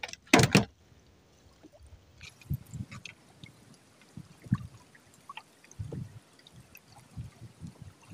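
Water dripping and trickling with scattered small knocks and low thumps as a drift gillnet is hauled aboard a small boat, with one short loud noise about half a second in.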